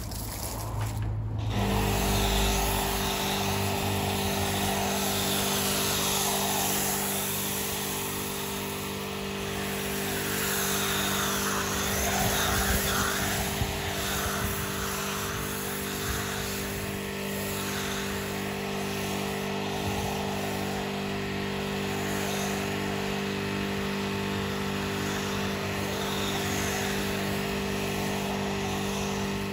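AVA P80 electric pressure washer kicking in about a second and a half in and then running steadily, with the hiss of a PF22.2 snow foam lance spraying foam. The pump holds a smooth, even note without pulsing while drawing from a water butt.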